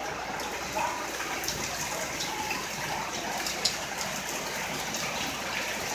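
Heavy rain pouring down in a steady rushing hiss, with a few sharp taps from drops striking a surface.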